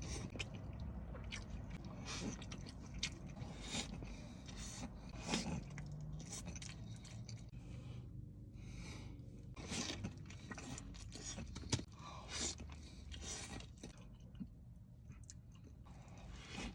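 Close-up chewing and crunching of chicken wings, with many irregular crisp crunches.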